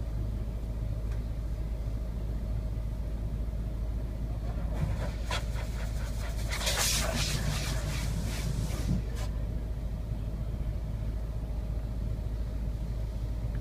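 Heard from inside the car's cabin: a steady low hum from the idling engine, and from about five to nine seconds in a loud hiss and spatter of a high-pressure water wand spraying against the car's body and windscreen.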